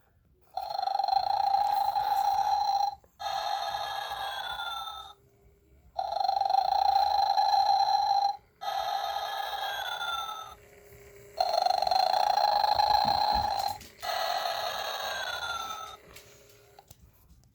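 Gemmy animated snoring Santa playing its electronic snoring sound: three cycles, each a long snore followed by a whistling breath out that falls in pitch.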